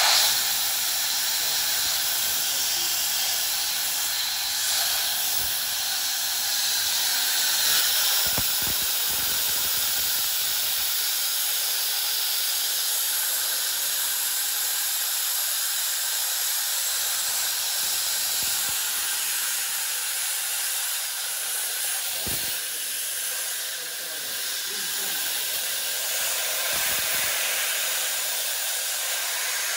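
Compressed air hissing steadily through a float-type aircraft carburetor with its throttle open, blown in from a hose to simulate engine intake airflow.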